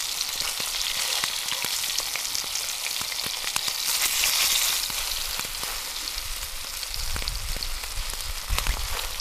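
Cod heads frying in hot vegetable oil and salt-pork fat in a cast iron pan: a steady sizzle with many small crackling pops. The sizzle swells briefly about four seconds in as a piece is lifted and turned over with a fork.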